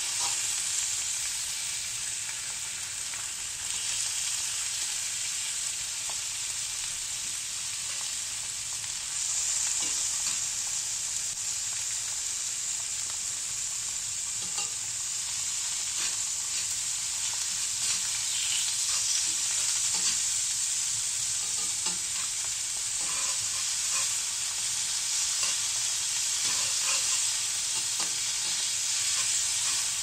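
Thin slices of beef sizzling in a hot cast-iron skillet alongside a fried egg, mushrooms and bell pepper strips: a steady frying hiss with scattered pops and spits. There are short clicks of metal tongs as slices are laid in and turned, and the sizzle grows louder about nine seconds in.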